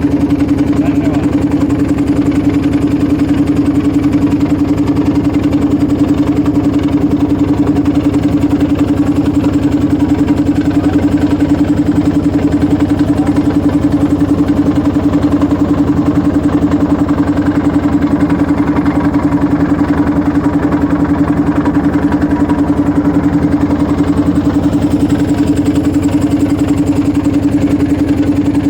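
Motorboat engine running steadily at a constant speed, an even hum with no change in pitch or loudness.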